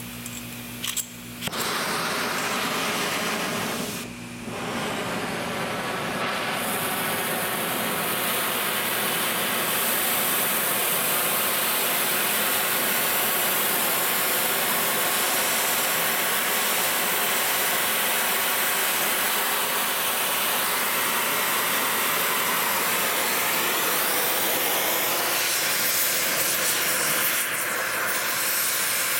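Oxy-acetylene cutting torch flame hissing steadily and loudly after it is lit about a second in, with a brief break around four seconds; the hiss grows brighter after about six seconds. Near the end the flame is cutting into the seized steel bearing race on an electric-motor shaft, throwing sparks.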